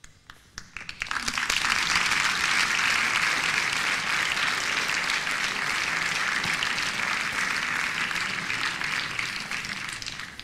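Audience applauding: a few scattered claps at first, swelling within about a second into dense, steady applause that begins to fade near the end.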